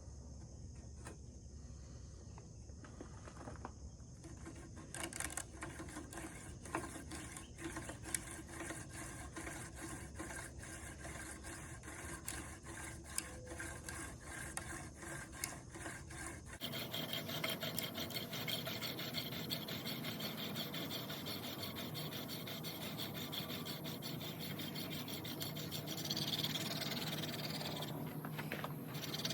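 Horseweed hand-drill spindle spun between the palms in a tulip poplar fireboard, wood rasping on wood in quick back-and-forth strokes as a new socket is burned in. The scraping starts a few seconds in and turns into a denser, louder rasp past the middle.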